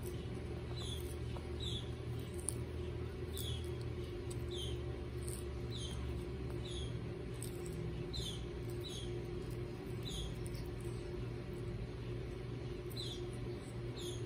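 Short, high chirps falling in pitch repeat irregularly, about one a second, over a steady low hum. Faint crisp ticks come from baby Aldabra tortoises biting and tearing lettuce.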